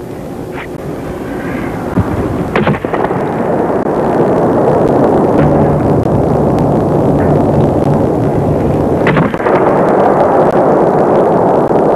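Hockey stick slapping pucks on the ice: two sharp cracks of slap shots, about two and a half seconds in and again about nine seconds in, over a loud, steady noise that builds during the first few seconds.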